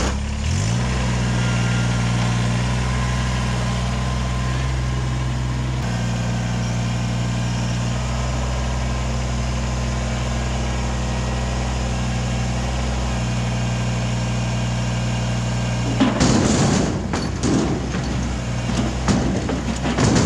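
Kubota BX23S compact tractor's three-cylinder diesel starting up and settling into a steady run. About sixteen seconds in, a loader bucketful of rocks clatters and thuds into a dump trailer.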